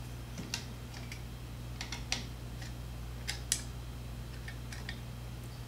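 Irregular small plastic clicks and taps from fingers handling cable connectors and wiring on a 3D printer's print-head carriage, the sharpest about halfway through, over a steady low hum.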